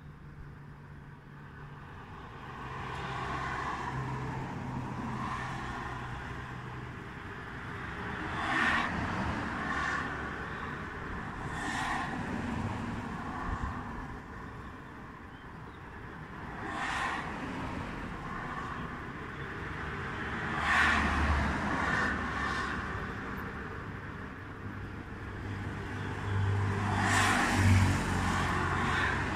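Road traffic: a steady background rumble with cars passing every few seconds, each swelling and fading.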